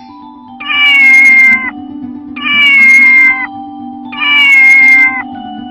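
A kitten meowing three times, evenly spaced, each meow about a second long and falling slightly in pitch. A steady low note of background music runs underneath.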